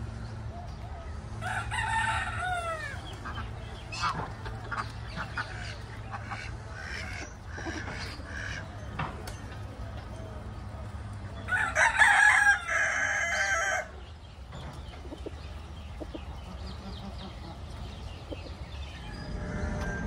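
Rooster crowing twice: once about a second and a half in, and again near the middle, the second crow louder and longer. Short calls from the penned fowl come in between.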